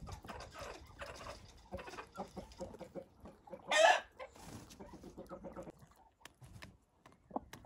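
Roosters and hens clucking, with one loud short call about four seconds in. Near the end come a few sharp taps as a rooster pecks broken egg off a brick wall.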